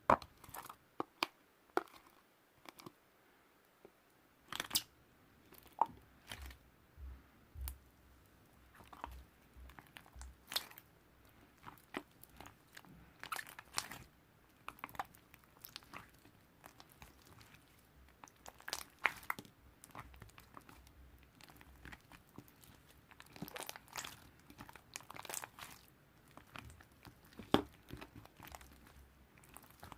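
Hands squeezing and kneading mixed slime: irregular squelchy pops and clicks, a few sharper and louder than the rest.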